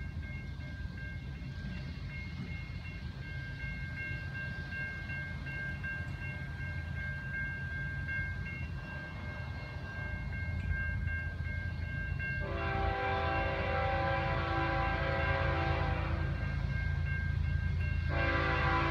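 Locomotive air horn on an approaching Canadian National coal train: one long blast about two-thirds of the way in, lasting some three seconds, then a second long blast starting near the end. Underneath, a low steady rumble slowly grows louder, and before the first blast a steady high ringing from a railroad crossing warning bell is heard.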